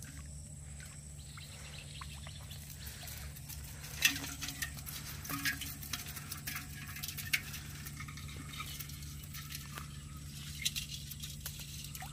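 A bamboo fish trap is emptied into a metal pot: shrimp and small fish drop and flick against the metal and water drips, giving a run of sharp taps and patters that begins about four seconds in, loudest at its start. A steady low hum runs underneath.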